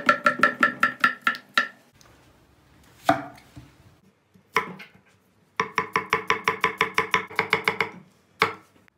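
Chef's knife chopping on an end-grain wooden cutting board, each stroke with a short ring. It opens with a quick run of strokes slicing potato into thick rounds; after a couple of single strokes, a faster, longer run of strokes chops an onion.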